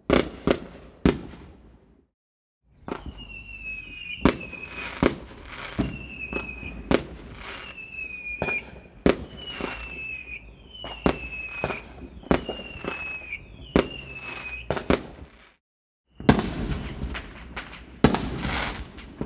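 Fireworks: a few sharp bangs, then a long run of whistling fireworks, each whistle falling slightly in pitch, with sharp bangs among them, then a dense crackling burst with loud bangs near the end.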